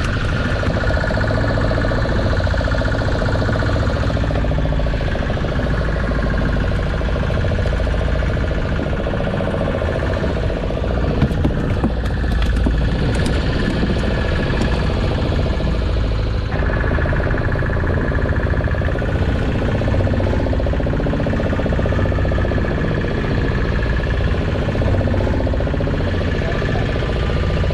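Fishing boat's engine running steadily, a dense drone with a low rumble, its tone shifting abruptly a little past halfway.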